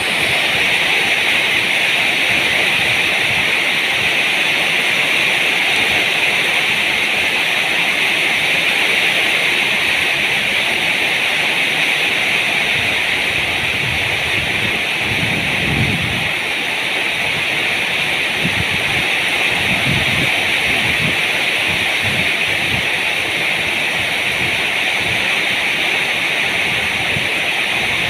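Heavy rain falling steadily, a loud, dense, even hiss, with a few low rumbles in the middle.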